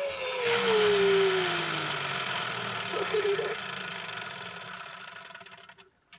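TOMY Po Teletubby toy spinning: its small motor and gears whir steadily while its speaker plays a sound that slides down in pitch over the first couple of seconds. The whirring slowly fades and stops just before the end.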